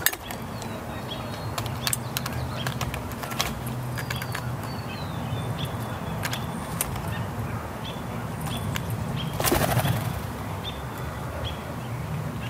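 Steller's jay handling in-shell peanuts in a steel bowl: scattered sharp clicks and rattles of shells against the metal. About three-quarters of the way through there is a short whoosh of wingbeats as the bird takes off. Faint bird chirps sound in the background.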